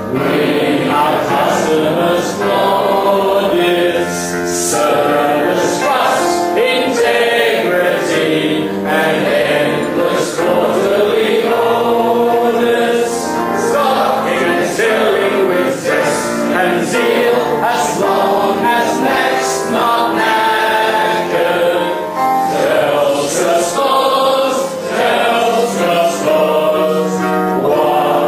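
A crowd of voices singing a song together in chorus, the audience singing along from lyric sheets.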